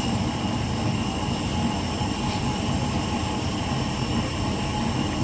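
Inside a city bus: a steady engine and road rumble with a few faint, steady high-pitched tones over it.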